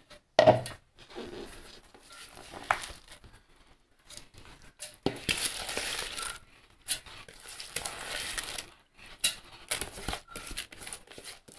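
Soaked raw rice poured from a bowl into a steel mixer-grinder jar: a sharp knock as the jar is set down about half a second in, then the grains slide and patter into the jar in two pours a few seconds apart, with a few light clatters near the end.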